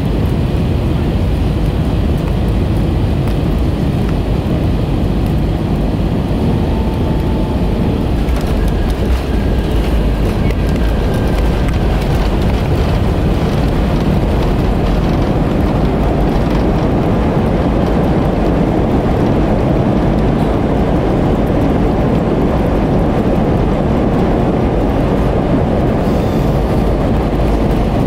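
Loud, steady rumble inside the cabin of an Airbus A320 rolling along the runway just after landing: engine and wheel noise as the jet slows down.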